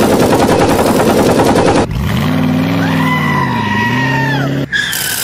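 Cartoon sound effects: a burst of rapid automatic gunfire for about two seconds, then a long pitched tone that rises, dips and falls away, with a higher tone starting near the end.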